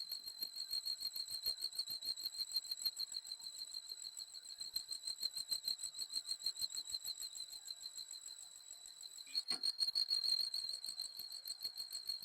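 Engine drive belt squealing: one steady high-pitched squeal that pulses evenly several times a second, the sign of a faulty belt. A brief knock sounds about nine and a half seconds in, after which the squeal is a little louder.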